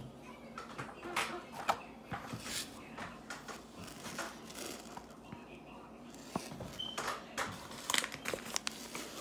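Scattered clicks, taps and rustles of kitchen handling: raw chicken breast pieces are packed into a plastic blender cup and a cardboard gelatin box is picked up and handled.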